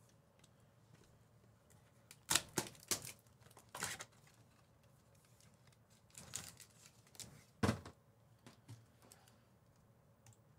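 Trading card packs being torn open and cards handled: a few short bursts of tearing and rustling, bunched about two to four seconds in and again around six to eight seconds.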